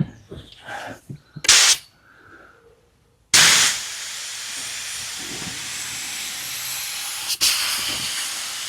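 Steady hiss of a paint spray gun spraying clear lacquer, starting abruptly about three seconds in with a brief break near the end. A short burst of hiss comes about a second and a half in.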